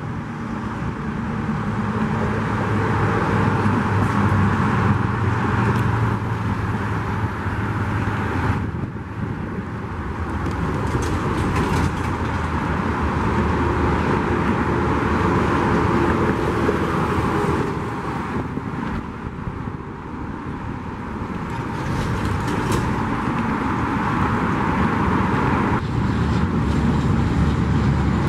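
Heavy freeway traffic: a steady rush of cars and trucks passing at speed, swelling and easing, with a low engine drone in the first several seconds.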